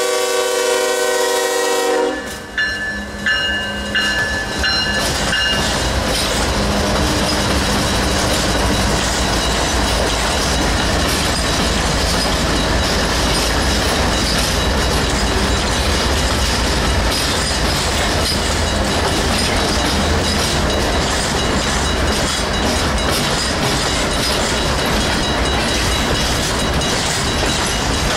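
A CSX freight train's locomotive air horn sounds and cuts off about two seconds in, with a grade-crossing bell dinging for a few seconds after. Four diesel locomotives then pass at close range with a heavy rumble, followed by freight cars rolling by, wheels clacking over the rail joints.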